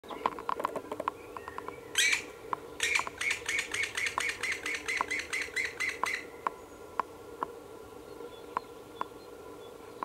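Black woodpecker nestling begging for food at the nest hole: a rapid, even run of harsh calls, about four a second for some three seconds. Scattered short, sharp calls come before and after the run.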